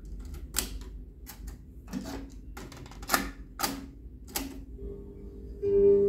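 Piano-key transport controls of a Marantz SD3020 cassette deck being pressed: a run of about six sharp mechanical clicks and clunks as the tape mechanism engages. About five seconds in, music from the playing tape comes in.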